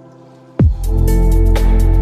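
Electronic background music: a soft held synth chord, then about half a second in a loud drop kicks in with heavy bass, a deep falling bass hit and fast hi-hat ticks.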